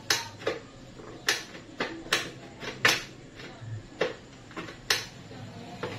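A kitchen utensil clinking and knocking against a dish about nine times at an uneven pace, while working a sticky granola-bar mixture.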